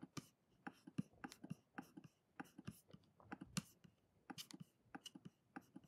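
Faint, irregular computer mouse clicks, a few a second, as items are clicked and dragged on screen.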